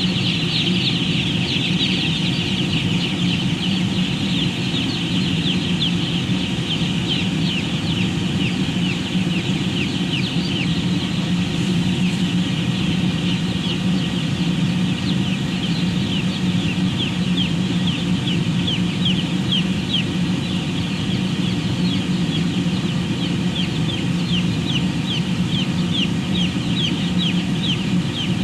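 A flock of broiler chickens peeping constantly: a dense mass of short, high, falling cheeps over a steady low machine hum.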